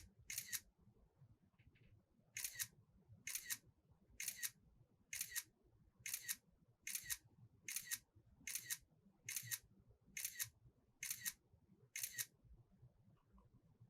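Camera shutter clicks, each a quick double click, repeated about once a second after two close together at the start and a short pause. They are a run of stop-motion frames being captured one by one, about fifteen in all.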